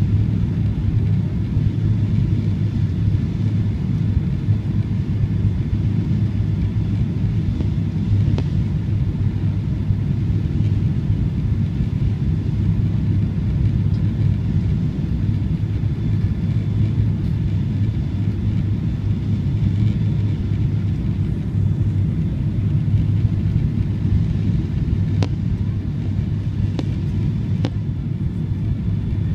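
Steady low rumble of a Boeing 777-300's engines and airflow heard inside the passenger cabin while the airliner descends on approach. A few faint clicks come about eight seconds in and near the end.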